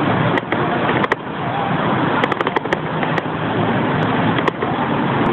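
Traffic and road noise heard from a camera riding on a moving bicycle: a steady rushing sound with scattered sharp clicks and rattles.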